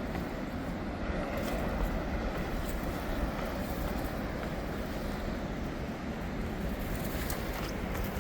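Steady low rumble of wind buffeting the microphone, with no speech.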